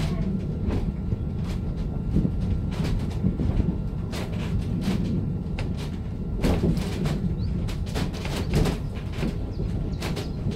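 Heidelberger Bergbahn funicular car running on its rails: a steady low rumble with irregular clicks and knocks from the wheels and track, thickest in the middle.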